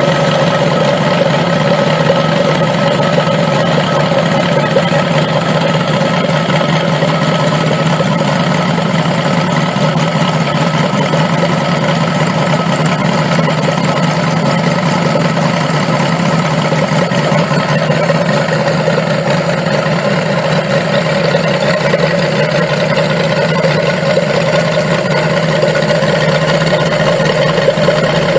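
UMS seven-cylinder 160cc four-stroke model radial engine running at a steady speed with its propeller turning, on its first run. The pitch holds steady throughout, with no revving up or down.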